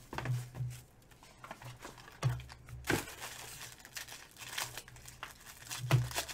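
Foil wrapper of a trading-card pack crinkling and tearing as it is opened by hand, with a few sharp clicks from the packaging being handled.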